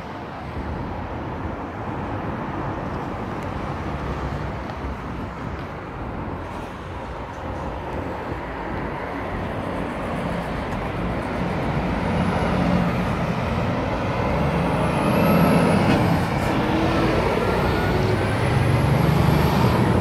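Motor traffic noise: a steady rumble that grows louder through the second half, with a few faint, high squealing glides in the last several seconds.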